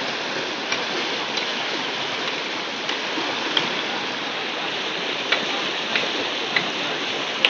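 Muddy floodwater rushing and churning in a fast, turbulent flow: a steady rushing noise, with a few brief sharp ticks of splashing.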